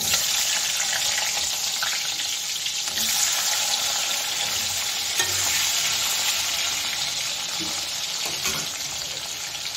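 Cut potatoes frying in hot oil in a wok, a steady loud sizzle that swells about three seconds in as more pieces are dropped into the oil.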